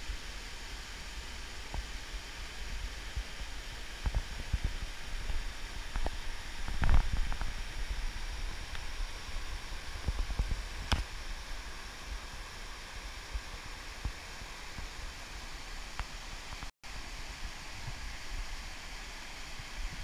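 Water rushing and splashing down a small waterfall cascade over granite rocks, a steady hiss. Low rumbling bumps on the microphone come and go, loudest about seven seconds in.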